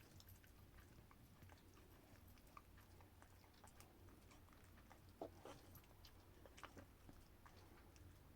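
Near silence: room tone with a low hum and a few faint, short clicks about five and six and a half seconds in.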